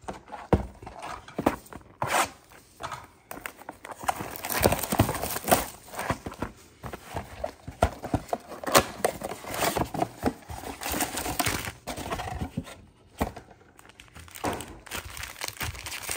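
Trading cards and foil card packs being handled: a few sharp knocks as cards are tapped and set down, then a long stretch of rustling and crinkling as packs are taken out of a mega box.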